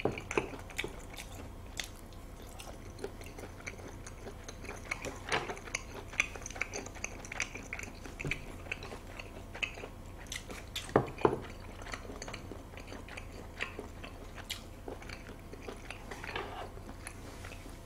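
A person chewing food close to the microphone, with soft wet mouth smacks and clicks scattered throughout and a slightly louder click about eleven seconds in.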